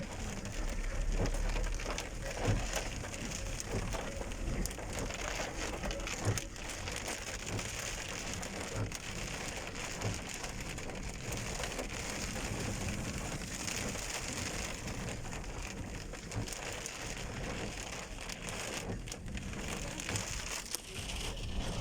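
Heavy rain falling steadily and pattering on surfaces, with scattered louder drops and knocks.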